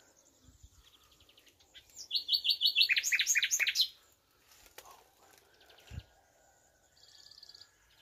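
Nightingale singing: a loud run of fast repeated notes starts about two seconds in and steps down in pitch. It breaks off before the halfway point, and a short, fainter high trill follows near the end.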